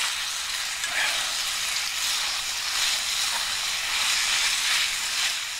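Spaghetti with bacon sizzling in a cast-iron skillet over a fire while it is tossed with chopsticks, the soy-milk sauce cooking down to coat the pasta. A steady hiss with slight swells as the pasta is turned.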